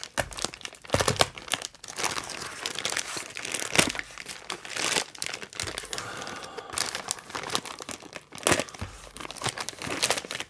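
White plastic FedEx shipping bag crinkling and rustling as it is handled and opened, with irregular crackles and a few louder crunches.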